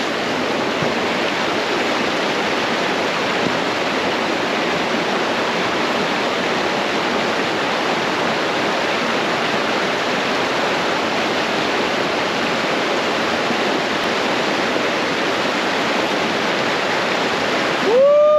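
A swollen, snowmelt-fed brook rushing in a steady, loud torrent. Near the end comes a brief pitched call that rises and falls.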